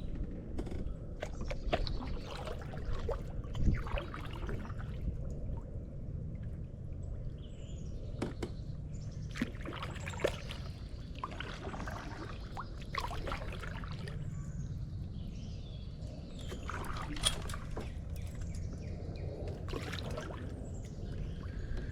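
Kayak paddle strokes: the blade dipping and pulling through water every second or two, with splashes and trickling drips. Birds chirp in short calls from about a third of the way in.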